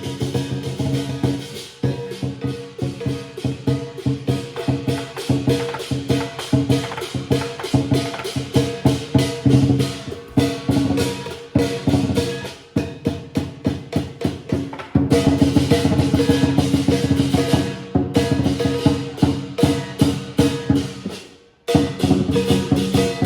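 Chinese lion dance drumming: a large drum beaten in a fast, driving rhythm with cymbals crashing along. The beating thickens into an unbroken roll in the last third, then breaks off for a moment near the end before starting again.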